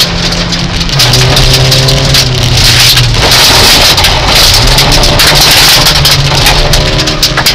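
Rally car running hard on a gravel stage, heard from inside the cabin. The engine holds high revs, dips about a second in and climbs back a couple of seconds later, over a constant hiss and patter of gravel thrown against the underbody and wheel arches.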